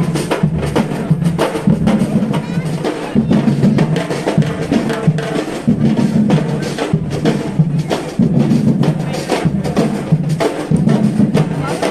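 Live band music driven by dense, fast drumming and percussion hits over a repeating bass line.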